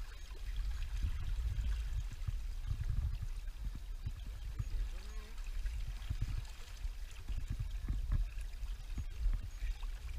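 Estuary water washing at the shoreline, with a low rumble that rises and falls.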